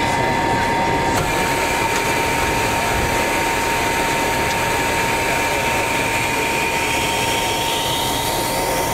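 Cabin noise of an MD-88 taxiing after landing: its rear-mounted Pratt & Whitney JT8D-200 turbofans running at idle, heard inside the cabin as a steady rushing drone with a steady high whine through it.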